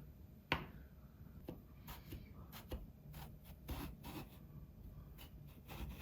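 A sharp click, then a series of light taps and rubbing: small objects being handled at close range.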